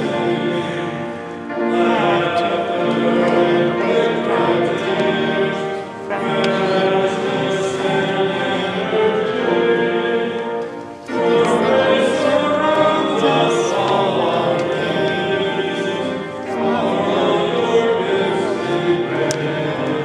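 Classical-style singing with accompaniment. It comes in long held phrases, broken by short pauses about every five seconds.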